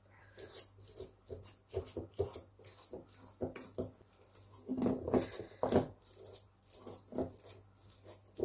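A fork mashing soft baked sweet potato in a stainless steel bowl: irregular strokes, a couple each second, the soft flesh squishing while the tines click and scrape against the metal.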